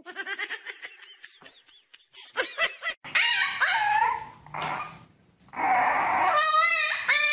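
Puppy whining and yelping in short high cries, building to a louder, longer cry with a wavering pitch near the end.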